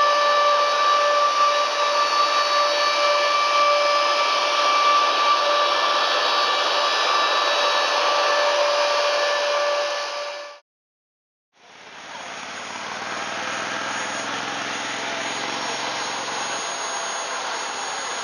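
Lockheed C-5B Galaxy's TF39 turbofan jet engine running, a steady rushing hiss with a high whine held on several fixed pitches. The sound cuts out for about a second near the middle, then returns as a duller, lower jet noise with a low hum.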